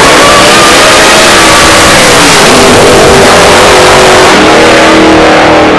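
Two outlaw drag cars launching at full throttle and accelerating hard down the strip, very loud, with the engine note climbing. About four seconds in the sound thins and drops in pitch as the cars pull away.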